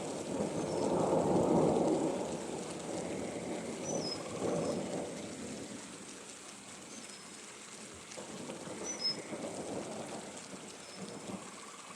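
Thunder rolling over steady rain falling on a pond. The rumble is loudest over the first couple of seconds, with further rolls about four and nine seconds in.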